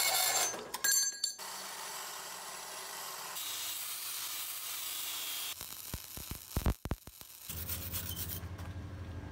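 A run of metalworking sounds. A metal-cutting bandsaw working through flat steel bar stops about half a second in. Later an angle grinder grinds a rusty steel frame with a bright hiss, followed by a series of separate scrubbing strokes from a hand wire brush on the steel.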